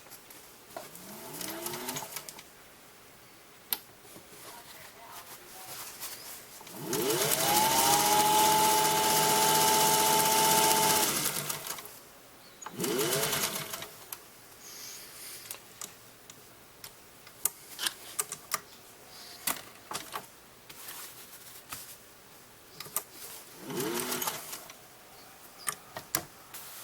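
Singer 201 sewing machine running in bursts: a long run of about four seconds near the middle that speeds up and then holds steady, plus three short runs that speed up, with scattered clicks in between.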